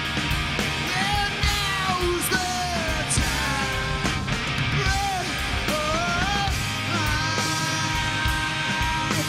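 Live alternative rock band playing: electric guitars, bass and drums, with a singer belting a shouted vocal line over them.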